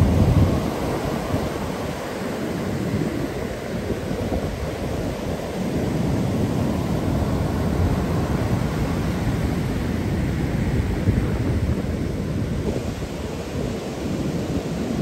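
Rough ocean surf breaking on a sandy beach: a continuous deep rumble of crashing waves and washing foam, loudest right at the start.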